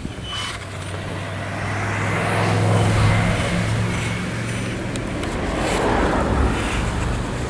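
Vehicle noise: a low, steady hum under a wide rushing noise that swells twice, loudest about three seconds in and again about six seconds in.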